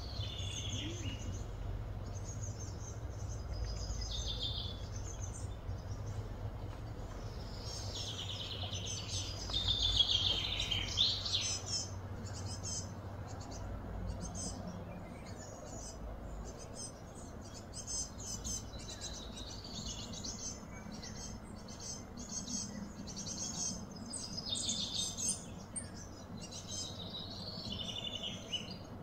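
Wild birds chirping and calling over a low, steady background rumble, with a louder run of calls about ten seconds in.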